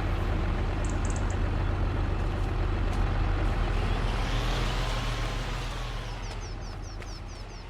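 A heavy engine running with a steady low drone, a faint tone rising and falling in pitch near the middle, then slowly fading near the end. A quick run of bird chirps comes in near the end.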